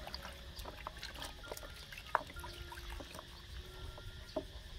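Bath water trickling and lightly splashing around a baby monkey, with small scattered clicks and drips.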